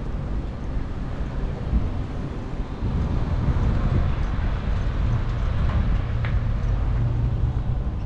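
Wind buffeting the microphone: an uneven low rumble that gets louder about three seconds in.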